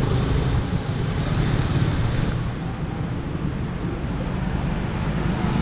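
Street traffic noise with steady wind rumbling on the microphone.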